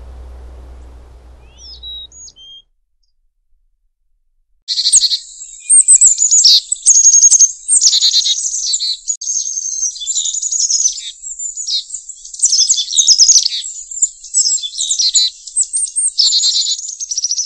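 Songbird song: dense, rapid chirps and trills, loud, starting abruptly about five seconds in after a short silence and continuing throughout. Before the gap there is faint outdoor background noise with a couple of soft chirps.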